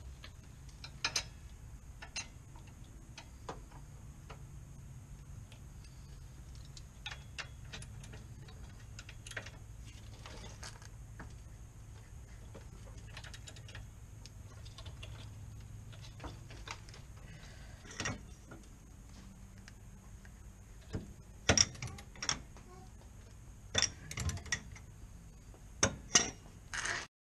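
Ratchet wrench clicking in short, uneven runs while it works a tight torsion-bar bolt on a car's rear suspension. Several loud, sharp metal clanks come in the last six seconds as a long steel breaker bar is brought onto the bolt.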